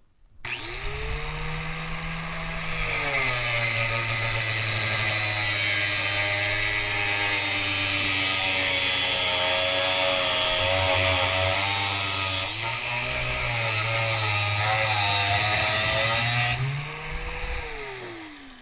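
Corded Harbor Freight angle grinder with a cutoff wheel spinning up, then cutting through 1-inch by 1/8-inch steel angle iron with a steady hiss, its motor pitch dropping under load. Near the end the wheel comes out of the cut, the motor speeds back up, and it winds down after switch-off.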